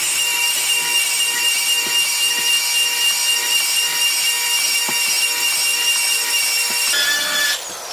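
Cordless stone polisher running with a 500-grit diamond pad, the spinning pad rubbing over a Fantasy Brown stone countertop seam to surface-polish it. The motor's steady whine and the scrubbing of the pad cut off suddenly near the end.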